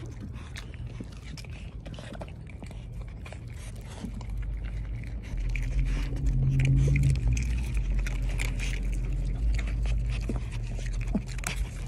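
Close handling noise as a dog's fur rubs against the phone's microphone, with scattered clicks and crackles and a low rumble that grows louder about four seconds in.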